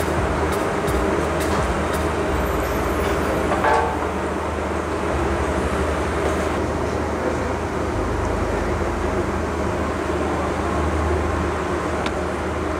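Steady roar of a commercial kitchen extraction hood fan with a low hum under it, and a few sharp knife strikes on a plastic cutting board in the first couple of seconds.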